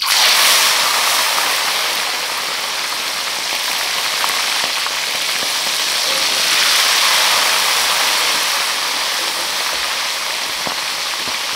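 Small seluang fish hitting hot oil in a wok and deep-frying: a loud, steady sizzling hiss that starts suddenly and swells again about six seconds in as another handful goes in.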